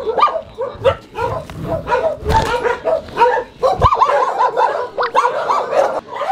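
A crowd of shelter dogs barking at once, a dense run of short, overlapping barks and yips with no pause. A couple of dull thumps come about two and a half and four seconds in.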